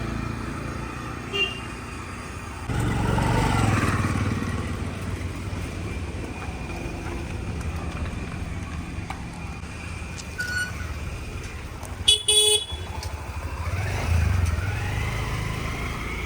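Road traffic with motorbikes and cars passing, rising and falling as vehicles go by, and a short vehicle horn toot about twelve seconds in.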